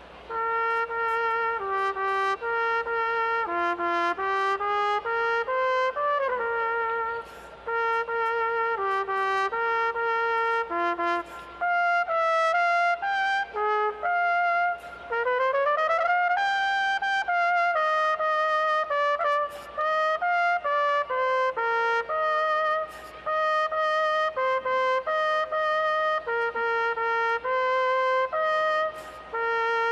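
Solo trumpet playing a lively tune of short and held notes, with a rising slide about six seconds in and a longer one about fifteen seconds in.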